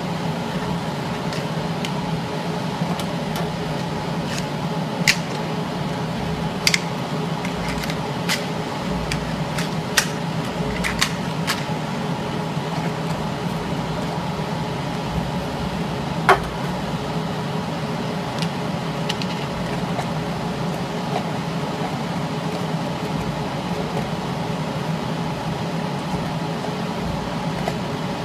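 Continuous induction aluminium-foil cap sealing machine running with its conveyor on: a steady whirr and hum from its cooling fan and conveyor drive. A handful of sharp clicks and knocks come in the first twenty seconds, the loudest about sixteen seconds in.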